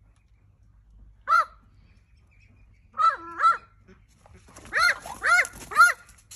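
Australian magpie giving short, harsh calls: one, then a pair, then three in quick succession.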